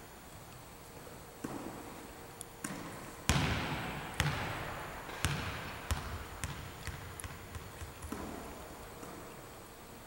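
Volleyballs smacking and bouncing on a gym floor, each impact echoing through the hall. The loudest hit comes about three seconds in. A run of bounces follows with shrinking gaps as a ball settles.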